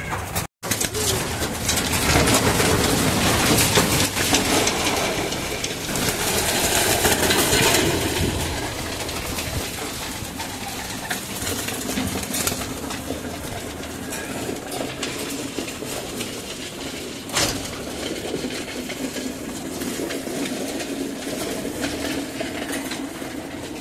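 A flock of racing pigeons crowding and flapping their wings at their feed, with some cooing. The wing noise is busiest in the first third, and there is a single sharp tap about two-thirds of the way through.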